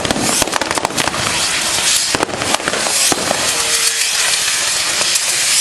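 Firecrackers on a pyrotechnic Judas effigy going off in rapid crackling volleys over a continuous hiss of burning fireworks. The cracks are densest in the first three seconds, after which the hiss carries on with only scattered pops.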